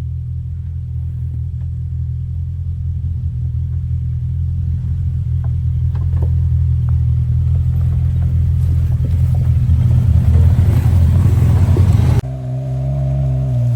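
Side-by-side UTV engine running in a low steady drone that grows gradually louder and rougher as the machine works up a climb, with scattered faint clicks. About twelve seconds in the sound changes abruptly to a different engine note with a higher steady tone.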